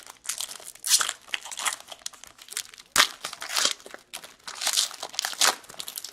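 Plastic card-pack wrapper crinkling and tearing as a pack of hockey cards is opened, in irregular rustling bursts with sharper crackles about one and three seconds in.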